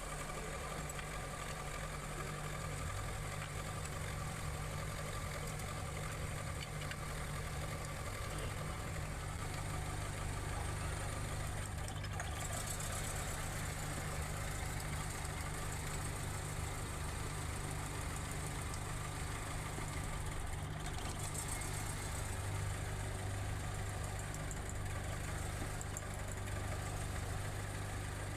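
Car engine idling steadily with a cylinder misfire, put down to a damaged spark plug.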